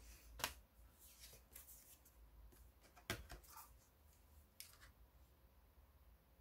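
Near silence with a few faint rustles and clicks of a paper flashcard being picked up and handled: one about half a second in, one about three seconds in, and one near the five-second mark.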